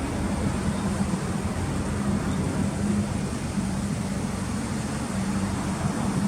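Subaru Impreza GDB's turbocharged flat-four engine idling steadily through an aftermarket Fujitsubo exhaust.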